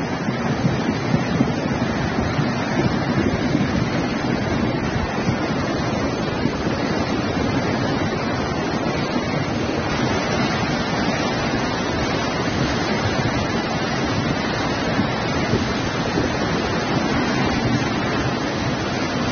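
Muddy floodwater rushing in a fast torrent down a street, a steady loud roar with wind noise on the microphone.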